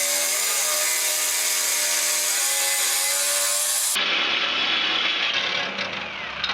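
Porter-Cable jigsaw with a fine-tooth metal blade running steadily as it cuts through the thin sheet-steel wall of a water-heater tank, finishing the last bit of the cut. The saw winds down and stops about six seconds in.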